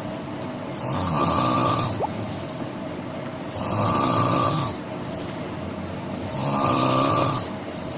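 A person snoring, with three snores at an even pace, one about every three seconds, each lasting about a second.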